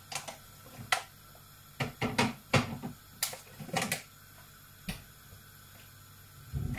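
Light clicks and knocks from things being handled at a kitchen counter: about a dozen irregular sharp taps, bunched around two and four seconds in.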